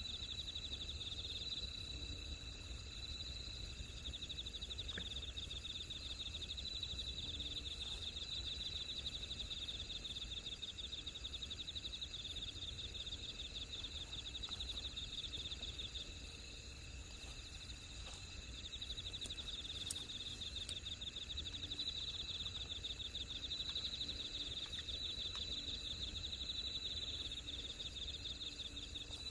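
Night insects trilling steadily, a fast pulsing high chirr that fades for a moment about halfway through, over a faint low rumble.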